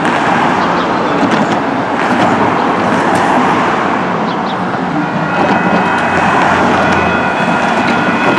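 Road traffic passing with steady tyre and engine noise. About five seconds in, the railroad crossing's electronic warning bells start ringing as the signals activate, a steady high ringing over the traffic.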